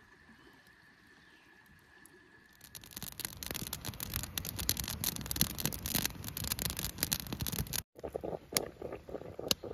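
Faint for the first three seconds, with a steady high tone. Then a wood fire crackles and pops under a camp percolator coffee pot. After a cut near the end, the percolator is perking, coffee bubbling up into its glass knob.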